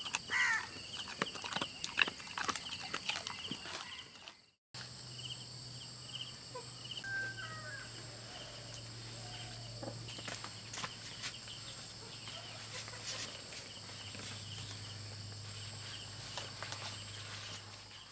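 Insects shrilling steadily in high continuous tones, one of them chirping in quick, even pulses, over scattered light clicks and taps. The sound drops out briefly about four and a half seconds in, and a low steady hum runs under the insects after that.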